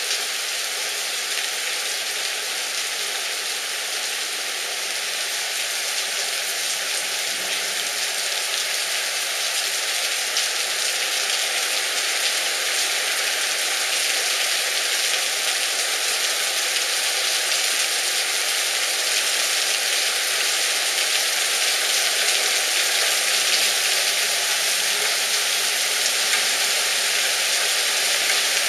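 Torrential rain pouring down in a steady, dense hiss, slowly growing a little louder.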